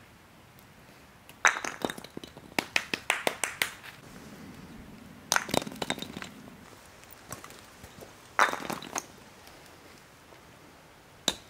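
Wooden kubb batons striking wooden kubb blocks and knocking them over. Three bursts of sharp wooden clacks and clatter, each opening with a loud hit: the first about a second and a half in with a run of clattering after it, then two more a few seconds apart, and a short clack near the end.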